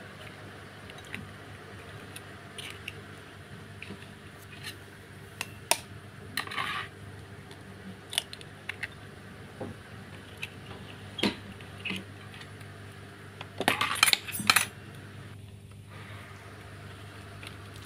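Eggs being cracked into a ceramic bowl: scattered light taps and clicks of eggshell against the bowl, with a quick run of several taps about fourteen seconds in. A faint steady low hum lies underneath.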